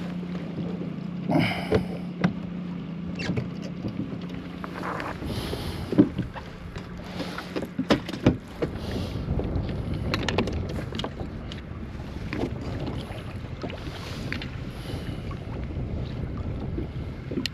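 Scattered knocks and clatter on a fishing kayak as a caught fish and tackle are handled, over wind and water noise. A low steady hum is there at the start and fades out about five seconds in.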